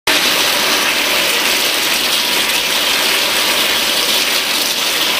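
Loud, steady rush of water pouring across a flooded test roof and draining into a siphonic roof outlet, with a rattling, churning edge.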